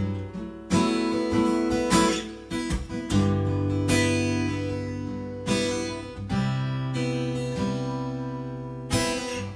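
Takamine acoustic guitar strummed slowly with a partial capo clamping only the upper four strings, so the two low strings ring open as a drone of pedal notes under chords in G. A new strum comes about every second, and each chord is left to ring.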